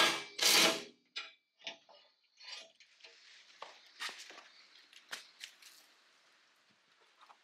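Knocks and clicks from car body parts being handled: two loud knocks in the first second, then lighter scattered taps and clicks as a plastic front bumper cover is offered up and pushed into place.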